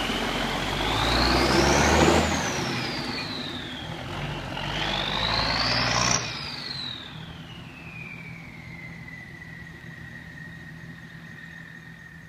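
M35A2 truck's turbocharged multifuel inline-six revved twice, its newly fitted C-model turbocharger whistling loudly: the high whine climbs and falls with each rev, then winds down into a steady, fading lower whine as the engine drops back.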